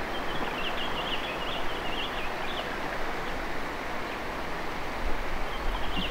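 Steady outdoor rushing noise of stream water and wind, with a small bird twittering high in quick chirps for the first two or three seconds and again near the end.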